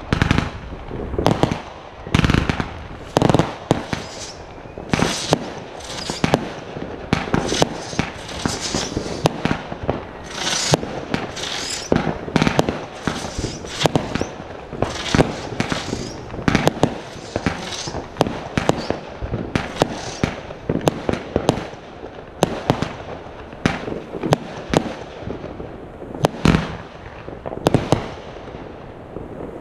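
Fireworks going off in rapid succession: many sharp bangs and booms, often several a second, with a denser hissing stretch around the middle.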